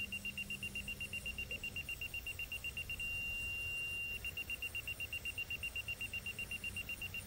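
Electronic warning beeper sounding one high tone in rapid pulses, about seven beeps a second, which holds as one steady tone for about a second near the middle. A faint low rumble runs underneath.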